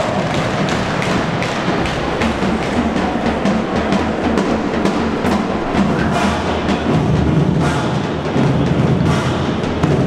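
Music with a steady drum beat.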